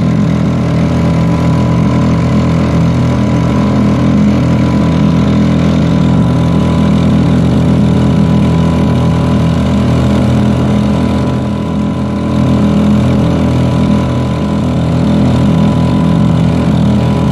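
Honda 2.3 hp air-cooled four-stroke single-cylinder outboard running steadily on a top-speed run, pushing a canoe along. It eases slightly about twelve seconds in, then picks back up.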